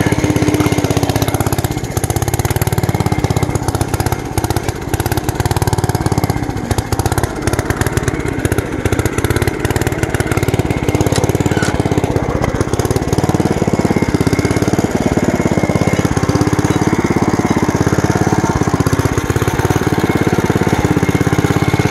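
Single-cylinder Wisconsin AKS engine of a 1949 Bolens Ridemaster running under way, unevenly, its speed rising and falling. It is not running right, which the owner puts down to a faulty carburetor.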